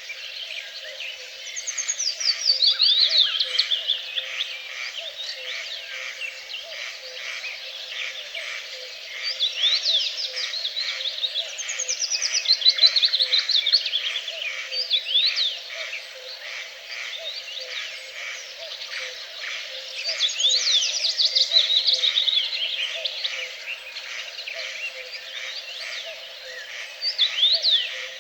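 Wild birdsong: one bird repeats a trilled song phrase that slides down in pitch, about every eight to ten seconds, over a constant chorus of other chirping birds. Beneath it runs a steady, evenly pulsing low chorus.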